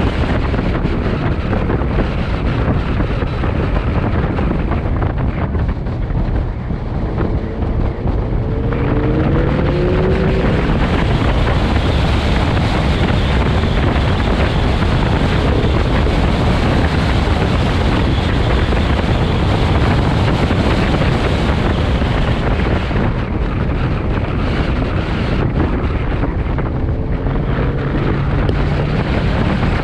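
Heavy wind buffeting on the microphone and road noise from a car being driven, with the V8 of a mid-engine C8 Corvette rising in pitch as it accelerates twice, about a third of the way in and again near the end.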